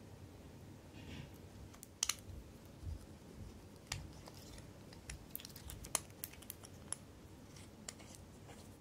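Irregular small clicks and taps, a dozen or so at uneven spacing, the sharpest about two seconds in, from a wristwatch and small watchmaking tools being handled on a bench.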